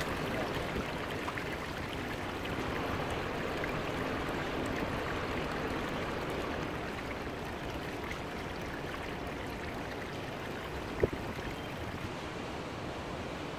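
Steady rush of flowing river water, with a single sharp tap a little before the end.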